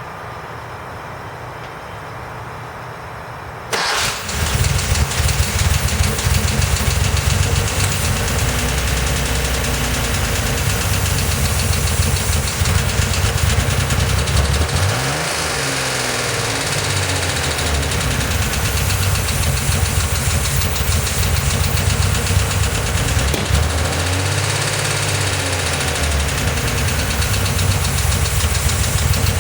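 Porsche 911 2.7S air-cooled flat-six starting about four seconds in and then idling, with its revs rising and falling twice. A loud tapping comes from the bottom end, a fault the owner notes after rebuilding the top end.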